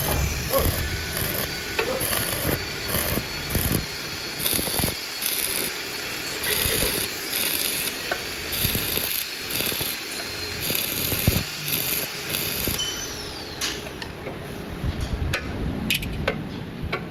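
Irregular clicks and knocks from hand work on a grass chopper machine's blades while they are being adjusted.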